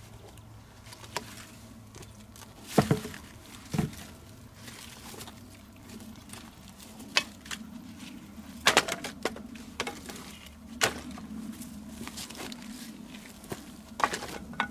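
Gloved hands handling stones and firewood on dry, stony ground: rustling and footsteps in dry grass, broken by a few sharp knocks of wood and stone, the loudest about three and four seconds in.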